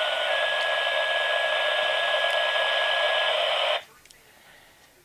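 Police scanner receiving a transmission through its small speaker: radio hiss with a steady tone held for about three seconds, the kind of paging tone a fire or EMS dispatch sends. The hiss cuts off suddenly near four seconds in as the transmission ends.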